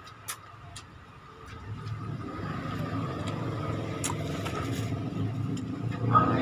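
A vehicle engine running nearby, its low rumble swelling about two seconds in and then holding steady, with a few scattered sharp clicks over it.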